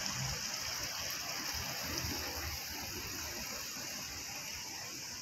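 Street ambience: road traffic going past as a steady wash of noise with an uneven low rumble, under a constant high hiss.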